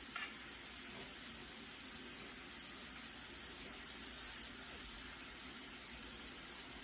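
Steady sizzle of food frying in hot oil, an even hiss that does not change, with a faint click just after the start.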